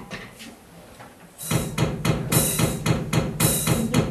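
A few faint clicks over a quiet stage, then about a second and a half in a recorded drum-kit dance beat starts: steady hits several times a second with a heavier accent about once a second.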